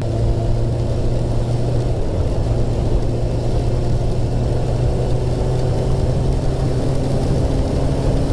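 Kawasaki ZX6R's inline-four engine running at steady revs while the motorcycle is ridden, with heavy wind rumble on the microphone.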